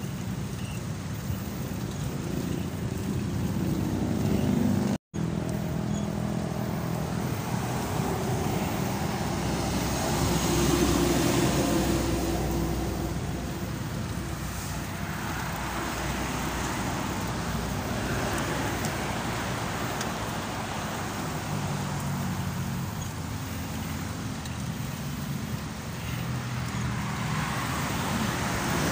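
Road traffic noise: cars running on a nearby road, a steady rumble with engine hum that swells around ten seconds in. The sound cuts out completely for a moment about five seconds in.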